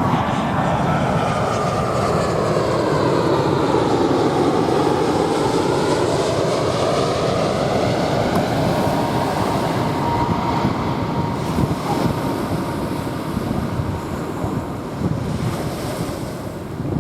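Jet airliner engines passing low overhead, the noise sweeping down and back up in pitch as the plane goes by, with a faint whine partway through. Small waves wash on a sandy beach, with some wind on the microphone.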